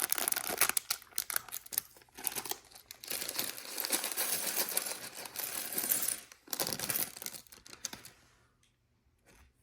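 Loose plastic LEGO pieces clattering and clicking against each other and the tabletop, mixed with the crinkle of a plastic parts bag, for about eight seconds before it dies away.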